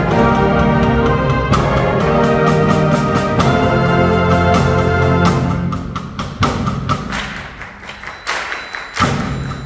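Concert band of clarinets and other winds holding full, sustained chords that die away about five to six seconds in, leaving a quieter passage broken by a few sharp percussive hits.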